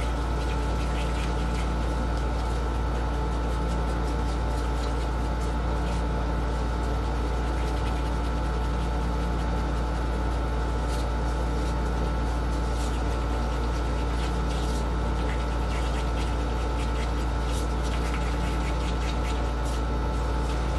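A steady low mechanical hum with a few constant tones in it, and faint scattered ticks of a wooden craft stick stirring pigmented epoxy resin in a small cup.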